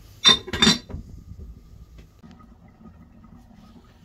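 A glass pot lid clattering down onto the rim of a metal cooking pot: two sharp clinks in quick succession, followed by a faint low hum.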